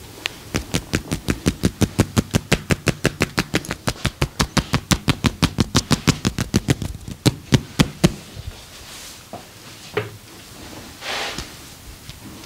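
Percussive massage: the masseur's hands striking the client's body in a fast, even rhythm of about six slaps a second for about eight seconds, then stopping. A single knock and a short rustle follow near the end.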